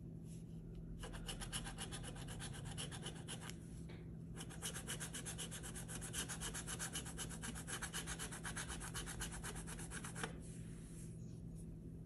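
A metal coin scratching the coating off a scratch-off lottery ticket in rapid back-and-forth strokes. The strokes start about a second in, pause briefly about four seconds in, and pause again near the end.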